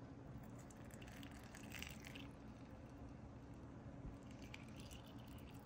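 Faint pouring of hot water from an electric kettle into a mug through a metal tea strainer, onto chamomile flowers and honey.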